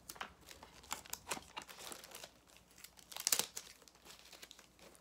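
Gift wrapping crinkling and tearing as a present is unwrapped by hand: a run of short rustles, the loudest about three seconds in.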